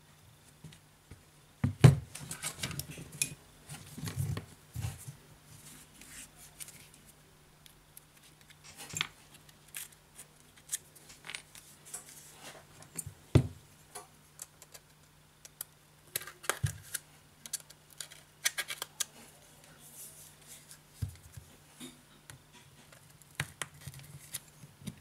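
Irregular clicks, taps and light scrapes of a metal-framed smartphone being handled and worked at with a metal tool during disassembly, with sharp knocks about two seconds in and again just past the middle.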